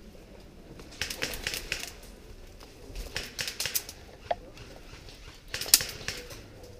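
Airsoft guns firing in three short bursts of rapid, sharp clicking shots: about a second in, around the middle, and again near the end. The last burst holds the loudest crack.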